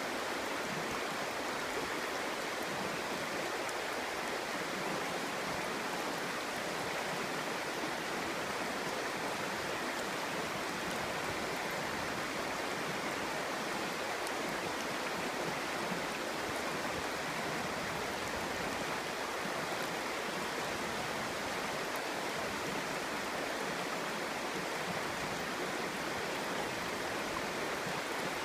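Clear, shallow stream babbling over stones: a steady, even rush of water.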